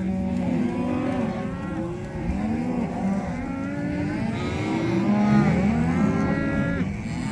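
Herd of cattle mooing, many calls overlapping one another without a break.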